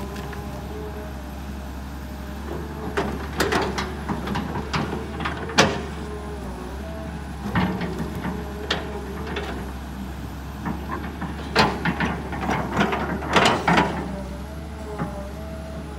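Kobelco SK200 hydraulic excavator's diesel engine running steadily under load while the bucket digs into earth and tree roots, with bursts of sharp knocks and cracks from the bucket and roots in three clusters.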